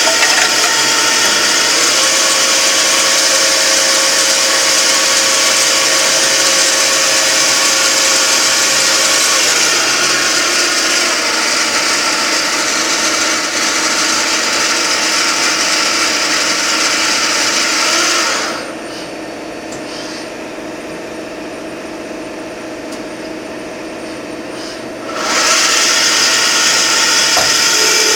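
CNC machine running: a steady high whine with a cutting hiss. About two thirds of the way through the hiss drops away and the sound is quieter for roughly six seconds, then the full cutting noise comes back.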